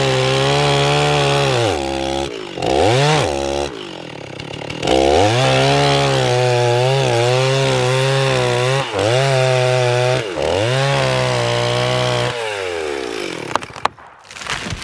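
Chainsaw running at high revs while cutting wood, its pitch wavering under load and dropping back to idle a few times between cuts. Near the end the revs fall away and the saw goes quiet, followed by a few sharp clicks.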